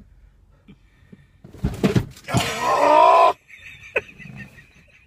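A couple of heavy thumps as a person throws himself against a van seatbelt, then a loud pained yell lasting about a second. A sharp click about four seconds in.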